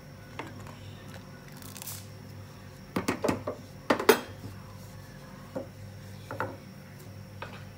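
Wooden spoon stirring milk and vermicelli in a cooking pan, knocking against the pan in scattered clicks and knocks, loudest in a cluster three to four seconds in, over a steady low hum.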